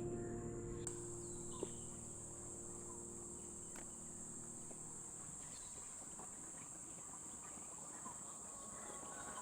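Steady, high-pitched drone of forest insects that grows louder about a second in, with faint, scattered bird calls; background music fades out at the start.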